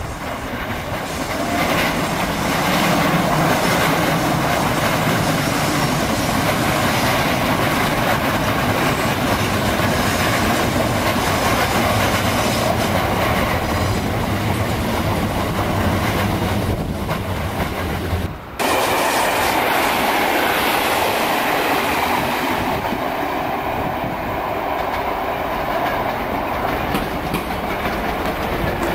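Third-rail electric multiple units running past, with wheels clattering over the rail joints and points and the growl of nose-suspended traction motors. The sound cuts off for an instant about two-thirds of the way through, then carries on with a rising motor whine near the end.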